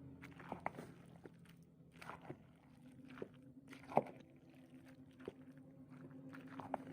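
About ten light clicks and knocks at irregular moments, the sharpest about four seconds in, over a steady low hum.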